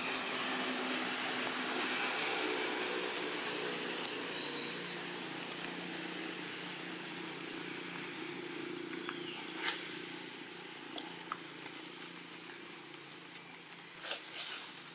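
Steady outdoor background noise with a low droning hum, like distant engine noise. Sharp clicks come about two-thirds of the way through and again near the end.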